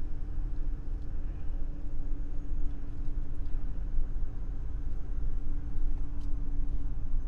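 A vehicle driving at low speed, heard from inside the cabin: steady engine and tyre rumble, with a steady hum that fades near the end.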